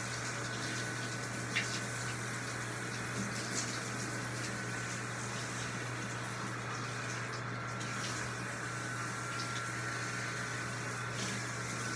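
Bathtub shower water running steadily while a dog is being washed, with a low steady hum underneath.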